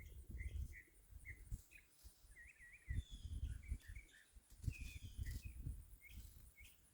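Birds chirping, with many short repeated notes, faint against the quiet. A few soft low bumps come and go under them.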